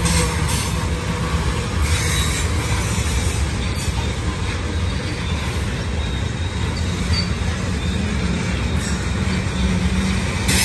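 Train rolling through a curve: a steady low rumble of wheels on rail, with faint high wheel squeal now and then.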